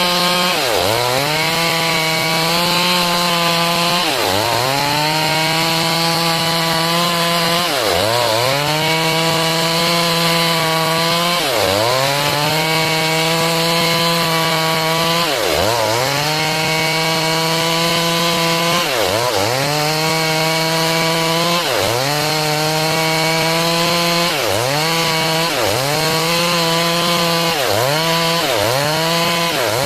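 Stihl MS 382 two-stroke chainsaw running under load as it rips a log into boards. Its engine pitch dips briefly and recovers every few seconds, more often near the end.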